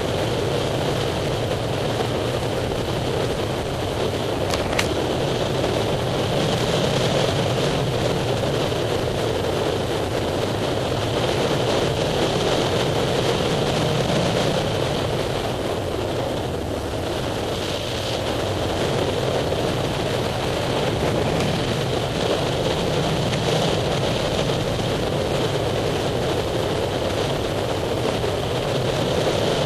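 Steady rush of air over the microphone during a paraglider flight, swelling and easing slowly, with a single sharp click about five seconds in.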